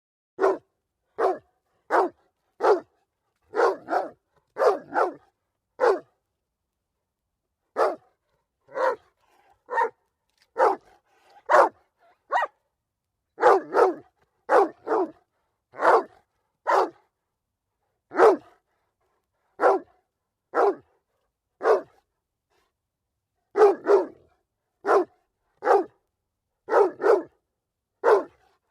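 A dog barking repeatedly: short, sharp single barks about one a second, in runs of several with brief pauses between.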